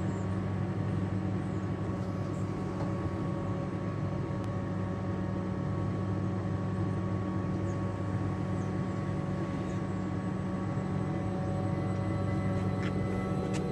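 Steady electrical hum and buzz from a standing Class 387 Electrostar electric multiple unit and the adjacent railway substation's transformers, with several steady whining tones above it. Near the end a few new tones join and it grows a little louder as the train begins to move off.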